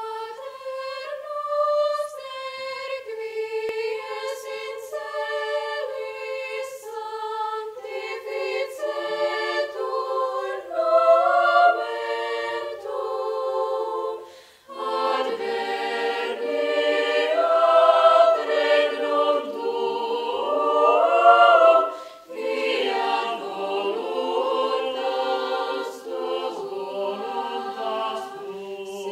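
Mixed youth choir singing a cappella. The singing starts high, with no low voices, then after a brief break about fourteen seconds in, lower voices join and the sound grows fuller and louder.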